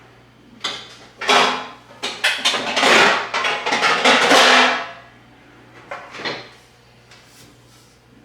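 Baking pans clattering and scraping against each other as a brownie pan is pulled out of a stack, in a run of knocks from about half a second to five seconds in, with a shorter clatter near six seconds.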